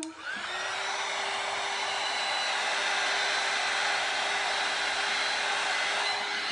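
Electric heat gun switched on, its fan rising to speed within the first second and then running steadily: a rush of blown air with a steady whine. It is blowing hot air onto wet acrylic pour paint.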